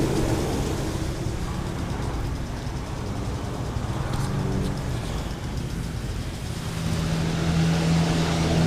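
A vehicle engine running at idle: a steady low hum that grows louder and steadier about seven seconds in.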